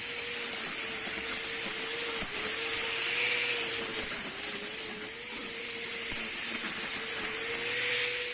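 Homemade grass cutter driven by a sewing-machine motor, running steadily: a high motor whine that wavers slightly in pitch, over a steady hiss.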